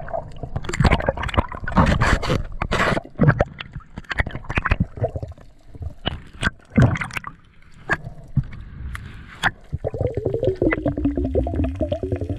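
Underwater water noise heard through a diving camera: gurgling and bubbling with irregular sharp clicks and knocks, and a muffled tone that falls in pitch near the end.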